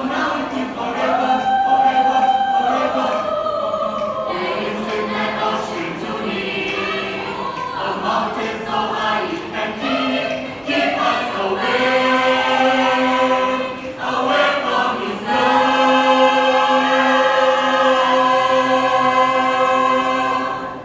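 A choir singing in harmony, several voice parts holding sustained notes together. It ends on a long held chord that stops suddenly near the end.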